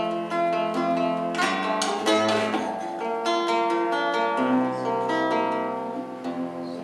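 Acoustic guitar playing a slow instrumental introduction of plucked notes and chords to a romance song.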